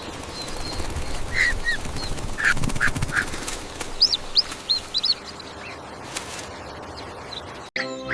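Short bird chirps and calls, some quick rising and falling twitters, over a steady rushing background noise. Music starts near the end.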